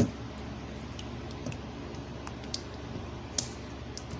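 Scattered light clicks and taps from something being handled, one sharper click at the start and fainter ones about a second apart, over a steady low hum.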